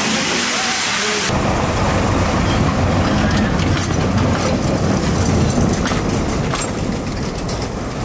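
A fire hose's water jet hisses for about the first second. Then the sound cuts abruptly to a tram rolling past, a low rumble with its wheels clicking over the rails.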